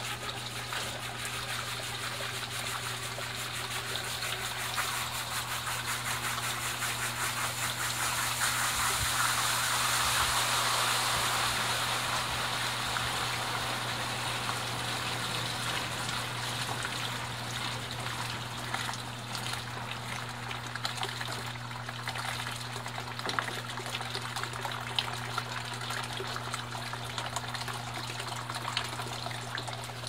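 Colormaq 15 kg top-loading washing machine filling with water for the rinse while its basket spins down: water gushing into the tub over a steady low hum. The inflow is used to help brake the spinning basket; the gush grows louder to a peak about ten seconds in, then slowly eases.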